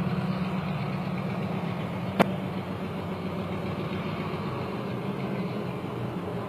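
Diesel switcher locomotive's engine running steadily with a low drone as it pulls a string of auto-rack cars. A single sharp click sounds about two seconds in.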